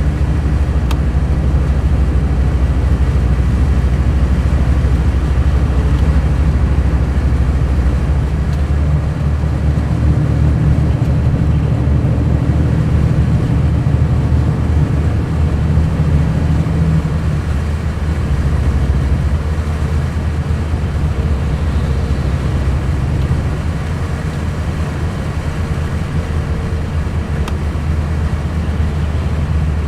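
Mercedes-Benz O500 RSD coach's diesel engine running steadily, its note shifting slightly a little past halfway.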